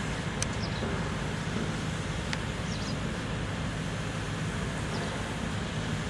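Manitou MRT2145 telehandler's diesel engine running steadily while its telescopic boom is lowered.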